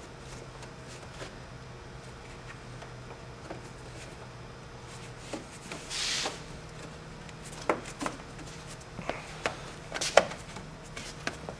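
Handling noises in a car's engine bay: scattered light clicks and knocks of hands on plastic trim and parts, mostly in the second half, with a brief rustle about six seconds in, over a low steady hum.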